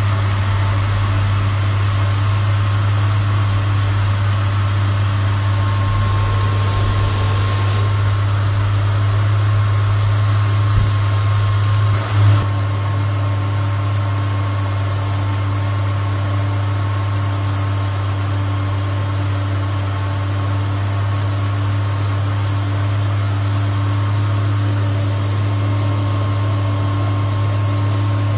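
CX4040 sapphire wafer-slicing saw running steadily under coolant spray: a loud, steady low hum with fainter higher tones and spray hiss. A high hiss drops away about eight seconds in, and there is one short low knock about twelve seconds in.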